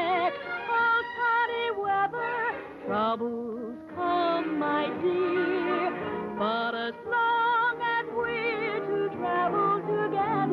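Background music: a song with a singing voice holding notes with heavy vibrato, in short phrases.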